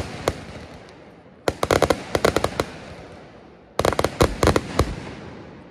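Fireworks shells bursting: two volleys of rapid, crackling sharp cracks, the first about a second and a half in and the second near four seconds in. Each volley dies away into a fading echo.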